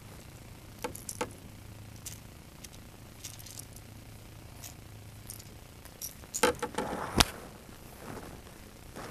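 Light clicks and rattles of a fishing lure's hooks and tackle being handled while a fish is unhooked. A cluster of louder clicks and knocks on the plastic kayak comes about six and a half seconds in.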